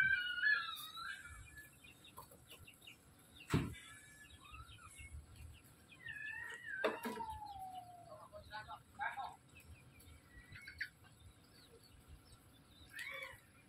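Domestic fowl calling at intervals: short cheeps and one longer call that falls in pitch, with two sharp knocks.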